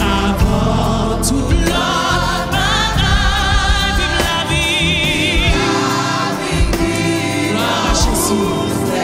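A woman singing a Haitian Creole gospel worship song over instrumental accompaniment, her held notes wavering with a wide vibrato.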